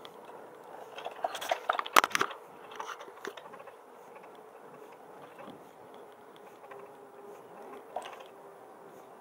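The Yose Power 250 W e-bike hub motor hums faintly and steadily as the bike climbs a hill under pedal assist. A burst of crackling clicks and knocks comes from about one to two and a half seconds in, with one more click near the end.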